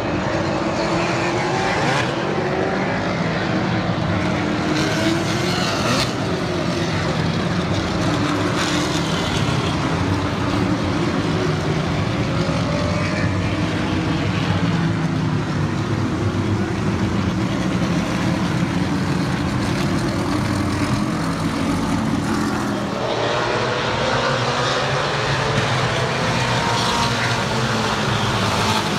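Several historic race cars running hard down a racetrack straight, their engines overlapping in a loud, continuous drone whose pitch rises and falls as the cars go by. About three quarters of the way through, another car's engine note swells in.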